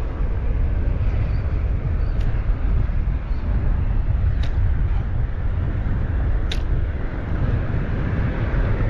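Steady low rumbling outdoor noise, with three faint sharp ticks about two seconds apart.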